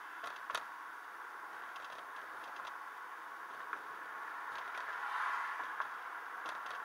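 Steady road and engine noise inside a moving car's cabin, a constant hiss, with a few light clicks here and there.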